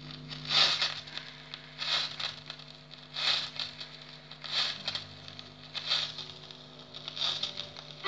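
Stylus riding the lead-in groove of a 45 rpm vinyl single: surface crackle with a swishing click once per turn of the disc, about every 1.3 seconds, over a steady low hum, just before the music begins.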